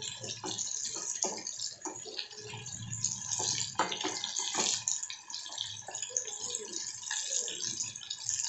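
Flour-coated chicken pieces deep-frying in hot oil in a metal kadai, sizzling steadily, with a metal spatula clinking and scraping against the pan as the pieces are turned to crisp both sides.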